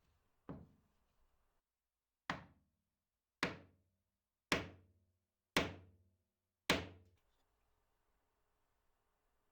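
Hammer blows driving a brass hammer head onto its new wooden handle: six sharp knocks, each dying away quickly, the first lighter and the rest about one a second.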